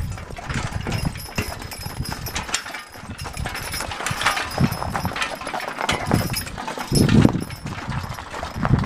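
Horse hooves clopping unevenly, with scattered knocks and rattles and a couple of heavier thumps.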